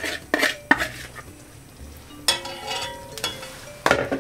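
Cooked beef being scraped out of a plastic bowl into an aluminium pot with a wooden spoon: a few quick scraping strokes in the first second. Then spoons knock against the metal pot, giving ringing clinks about two seconds in, again a second later, and loudest near the end.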